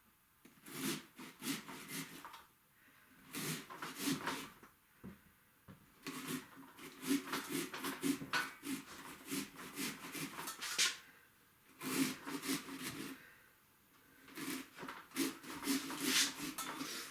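ToughBuilt folding jab saw with a drywall blade sawing by hand through pumpkin rind and flesh. It goes in several runs of quick back-and-forth rasping strokes with short pauses between them.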